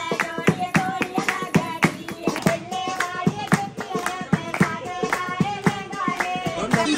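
A group of women clapping their hands in a steady, quick rhythm, about four claps a second, with singing over the claps.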